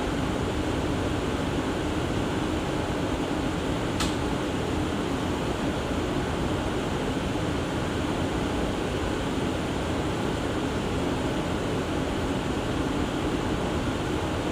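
Cabin noise of an R179 subway car under way: a steady rumble with a steady hum, and a single sharp click about four seconds in.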